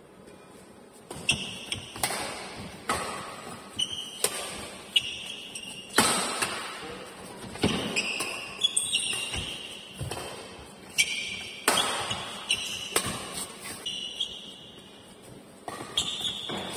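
Badminton rally: rackets striking the shuttlecock about once a second, each hit sharp and echoing in a large hall, with short high squeaks of court shoes between hits.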